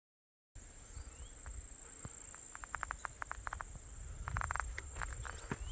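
Insects chirring in a steady high drone, starting about half a second in, with scattered short crunches and clicks, a quick run of them near the middle.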